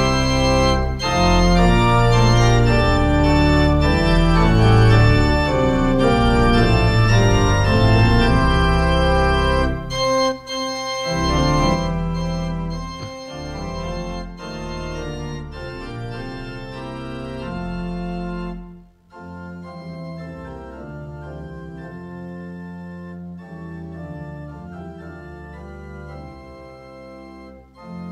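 Organ playing slow, held chords, full and loud with a deep bass for about the first ten seconds, then continuing more softly with the bass thinning out; a short dip comes about two-thirds of the way through.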